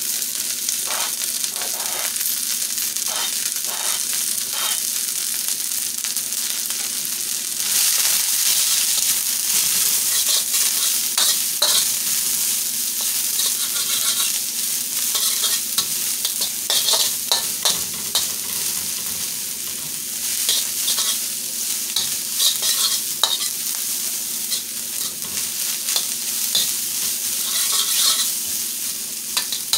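Chopped cabbage sizzling in a hot steel wok while a metal spoon stirs and tosses it, scraping and clicking against the pan. The sizzle gets louder about eight seconds in.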